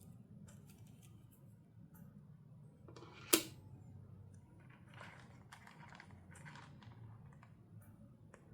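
Toy packaging and small doll accessories being handled: scattered light plastic clicks and rustling, with one sharp snap a little over three seconds in.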